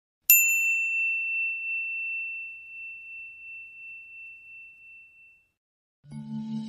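A single clear, high bell-like ding, struck once and left to ring, fading away over about five seconds. Just before the end, low steady musical drone tones come in.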